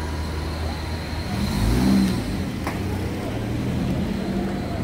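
Motor vehicle engine running with a steady low hum, swelling louder briefly about two seconds in as it revs, then settling back; faint voices of people on the street.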